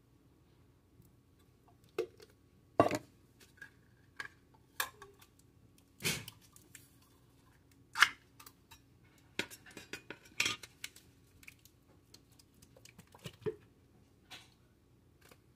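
Metal spoon scraping and clinking inside a tin can as thick condensed soup is scooped out: a string of irregular sharp clinks and short scrapes, a second or two apart.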